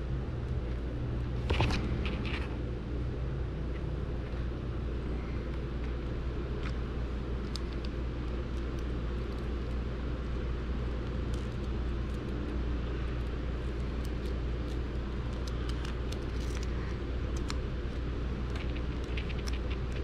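Steady low hum throughout, with faint clicks and rustles of small plastic parts and wires being handled, a small cluster of clicks about two seconds in and more near the end.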